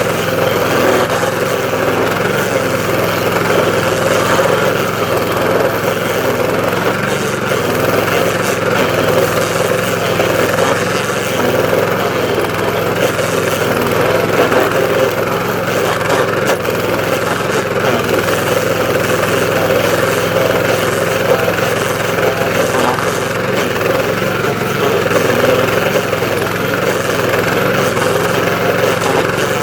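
DR stump grinder's gasoline engine running steadily at working speed while the toothed cutter wheel grinds down a stump, a constant engine drone under a rough grinding noise.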